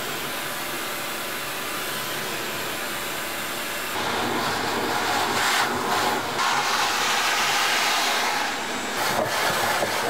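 Shop vac running, a steady rush of air with a motor whine, sucking up drywall sanding dust through its hose. From about four seconds in, as the nozzle is worked over the dusty floor, the sound gets louder and more uneven.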